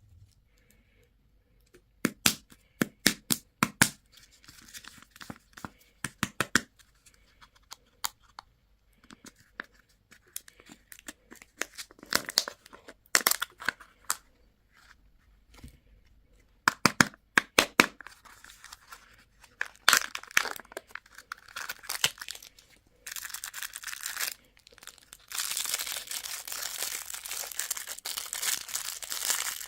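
Candy wrapper being handled and torn open: clusters of sharp crackles and crinkles, then from about two-thirds of the way in a continuous crinkling and tearing of the wrapper.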